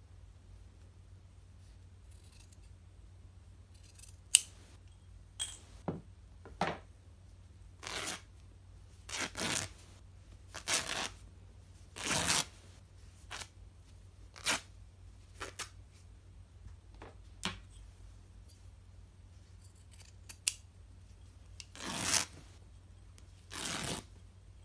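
Scissors cutting through an old bed sheet along its elastic edge, in a string of separate, irregularly spaced snips with a few sharp blade clicks.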